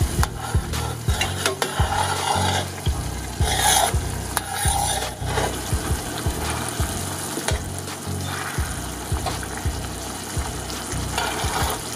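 A metal spoon stirring a simmering red wine and onion sauce in a stainless steel skillet, with repeated clinks and scrapes against the pan. Under it is the steady sizzle and bubbling of the sauce as it reduces.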